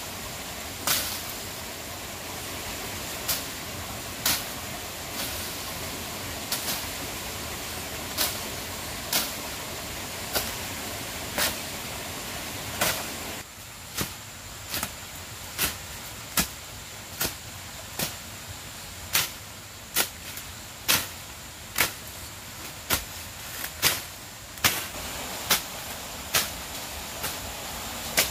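A bladed hand tool chopping into soil and undergrowth in short, sharp strikes. The strikes come irregularly at first, then about once a second from about halfway in.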